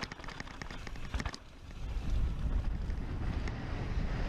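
Wind buffeting the microphone on an exposed ridge, a low rumble that swells about a second and a half in and stays strong. Before it, a quick run of small clicks.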